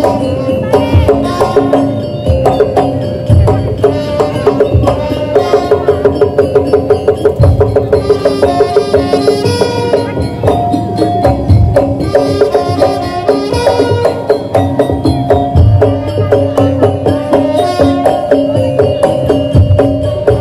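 Madurese daul percussion ensemble playing loudly: fast, steady drumming under a stepped melody line.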